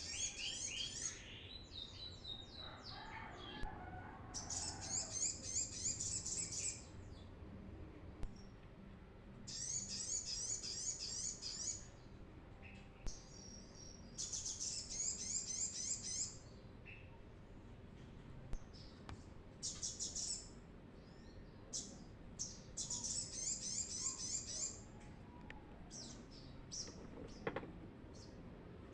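Brown-throated sunbird (kolibri kelapa) singing actively: five bursts of rapid, high chirping notes, each about two to three seconds long and several seconds apart, with single chirps between them.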